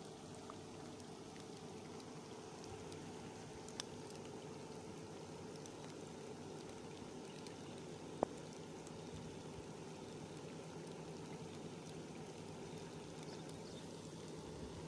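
Heavy rain falling steadily on a reservoir's water, an even hiss. A faint click about four seconds in and a sharper, louder click about eight seconds in.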